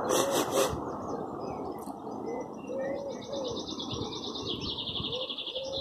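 A pigeon cooing in short repeated phrases, with a small songbird's rapid high trill over it through the second half. There is a brief rustling burst right at the start.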